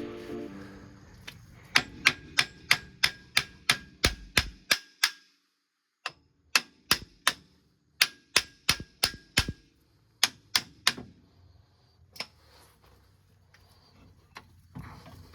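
Ratchet wrench clicking in two runs of sharp, even clicks, about three a second, with a few scattered clicks afterwards, as the brake caliper bolts are unscrewed.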